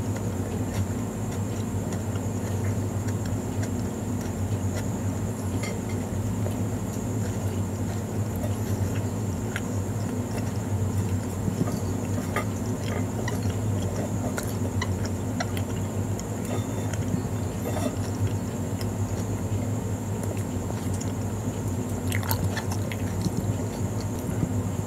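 Close-up chewing of a soft burger bun, with small wet mouth clicks scattered throughout, over a steady low electrical hum.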